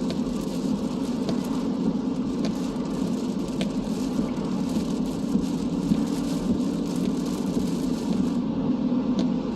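Steady road and tyre noise of a car driving, heard from inside the cabin, with a few faint scattered ticks.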